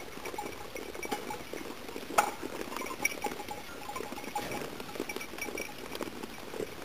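Lambs and goats feeding at a metal feeder: a steady patter of small clicks and clinks as they push at the feeder and eat grain, with one sharp knock about two seconds in.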